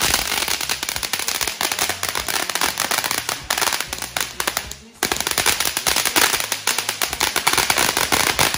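Ground fountain firework spraying sparks with a loud, dense, rapid crackling, like many tiny pops in quick succession. The crackle dies away briefly a little before five seconds in, then comes back at full strength.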